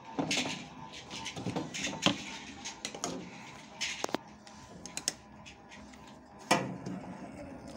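Scattered plastic clicks and rustling as a washing machine's wiring harness and cable ties are handled and snipped with cutting pliers. The sharpest click comes about six and a half seconds in.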